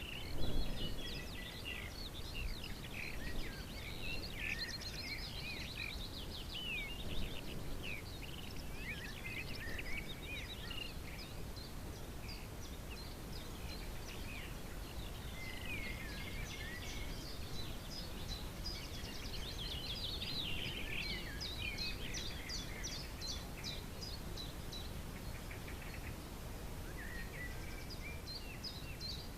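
Steady low rumble of wind, with small songbirds chirping and trilling almost throughout in quick runs of short high notes.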